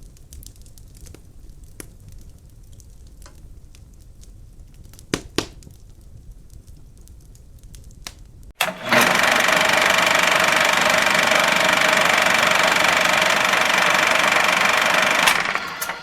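Quiet scattered clicks and handling taps, two sharper ones about five seconds in. Then a loud, steady machine whir with a fixed hum in it starts suddenly and runs for about seven seconds before cutting off near the end.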